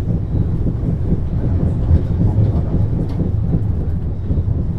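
MAN GTW 72 suspension-railway car of the Wuppertal Schwebebahn running along its track, a steady low rumble with a few faint clicks.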